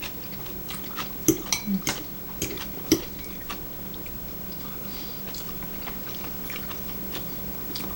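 Chewing at the table, with a handful of sharp clicks of utensils against dishes about one to three seconds in, then quieter chewing over a steady low hum.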